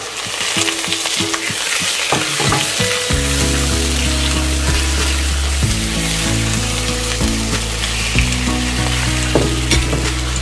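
Food for seafood fried rice sizzling loudly in hot oil in a pan, starting suddenly as it hits the pan, with a few light clinks of stirring.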